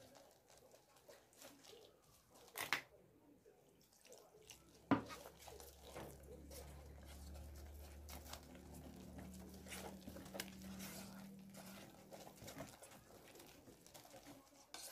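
Fingers stirring a wet flour batter in a metal bowl: faint, irregular soft scraping and patting, with two sharper knocks in the first five seconds. A faint low hum comes in about five seconds in and stops a couple of seconds before the end.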